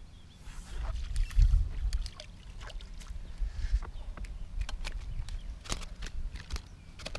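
Clicks and knocks of a long-handled landing net and gear against a small fishing boat as a hooked fish is netted. Heavy low thumps come about a second and a half in.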